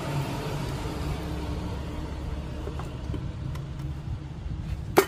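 Low rumble of a passing motor vehicle, slowly fading away, then a single sharp click near the end.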